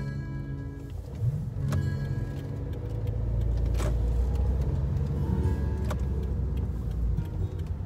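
Car engine and road rumble heard from inside the cabin while driving, growing louder about three seconds in, with music playing over it.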